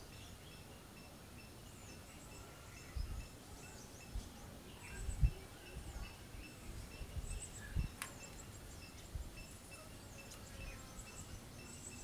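Faint outdoor ambience: insects chirping in a steady, evenly pulsing pattern and small birds giving short high chirps. A few low thuds come in the middle, the loudest about five seconds in, and there is one sharp click a little later.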